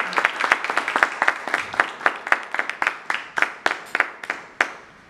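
A small audience applauding at the end of a talk. The clapping thins out to a few scattered claps and dies away about four and a half seconds in.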